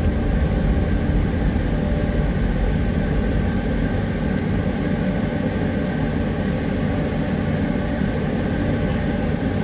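Steady, even rushing noise inside a car's cabin with a low rumble underneath, unchanging throughout: a ventilation fan blowing hard over the idling engine.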